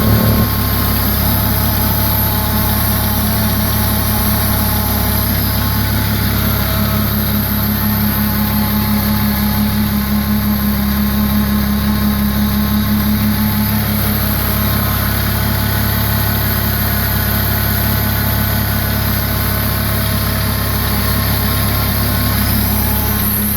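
Supercharged 2.0-litre 16-valve VW 9A four-cylinder engine idling steadily.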